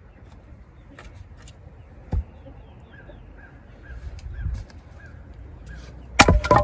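Heavy splitting maul striking a log: one dull thump about two seconds in, then near the end a loud, heavy strike with the sharp cracking of the wood as it splits.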